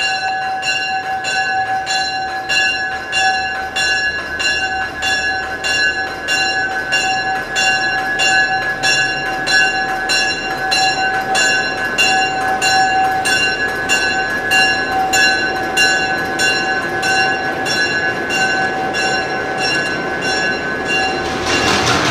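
Diesel locomotive's bell ringing steadily as the EMD GP7 moves through the station, about three strokes every two seconds, each stroke ringing on. A rush of noise joins in near the end.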